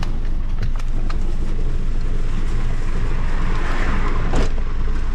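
Shared minibus taxi's engine running with road and cabin noise, heard from inside the vehicle, with scattered small knocks and clicks and a sharper knock about four seconds in.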